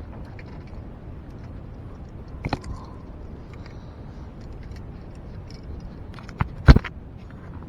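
A few sharp knocks over steady wind noise on the microphone: one about two and a half seconds in, then two close together near the end, the last the loudest.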